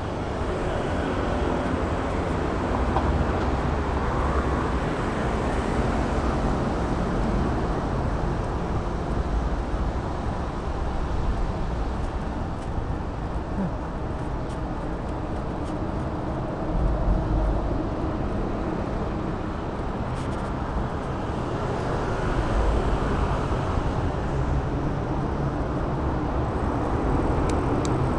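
City street traffic noise heard while cycling: a steady wash of passing vehicles and road noise, with a low rumble that swells about two-thirds of the way through.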